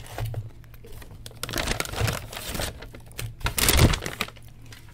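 Food packaging rustling and crinkling as it is handled, in three spells, the loudest near the end.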